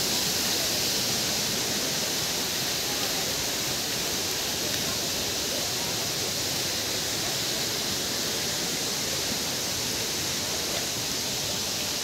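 Steady rushing roar of a waterfall, even and unbroken.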